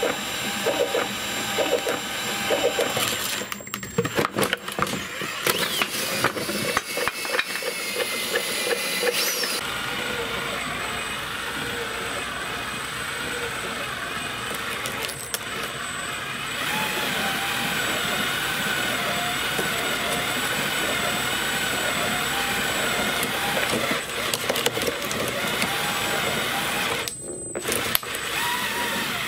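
Power drill turning a 3D-printed compost shredder's plastic cutter rollers as food scraps go through. A steady motor whine runs with rapid crunching and clicking over the first several seconds, then settles into a smoother run whose pitch wavers as the load changes.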